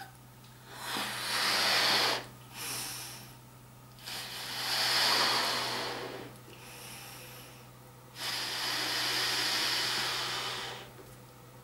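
A person blowing up a rubber balloon by mouth: three long puffs of breath into it, each about two seconds, with shorter, fainter breaths between them.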